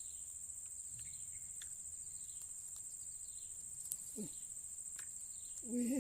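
Insects trilling steadily at a high pitch, with faint short falling calls repeating about once a second.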